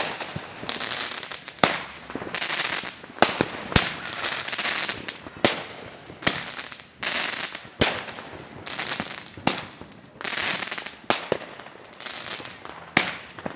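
Consumer fireworks going off in a rapid series, about one shot a second, each a sharp bang followed by a crackling hiss.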